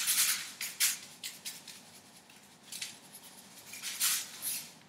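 Salt shaken from a cylindrical canister onto a whole fish lying on foil: irregular groups of dry, rattling shakes, strongest at the start and again about four seconds in.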